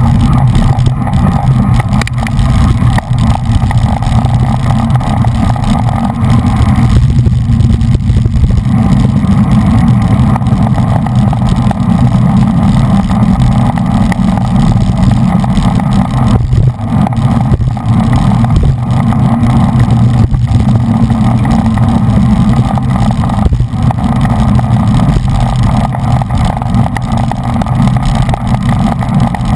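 Wind buffeting a bicycle-mounted action camera's microphone at racing speed: a loud, steady low rumble.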